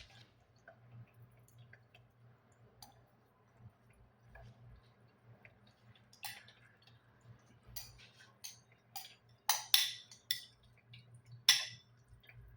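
Scattered clicks and clinks of kitchen utensils and dishes being handled, sparse at first and louder and more frequent in the second half, over a steady low hum.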